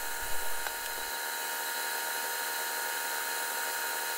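Metal lathe running as it turns down a metal shaft, heard from footage sped up twenty times: a steady high-pitched hiss with several fixed tones.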